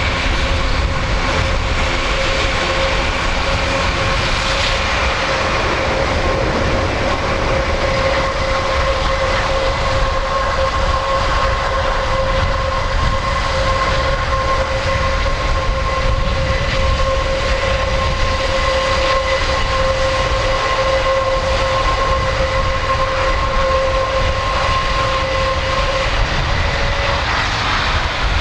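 Airbus A400M's four Europrop TP400 turboprop engines running at low taxi power. It is a steady propeller drone with a high whine over a low rumble.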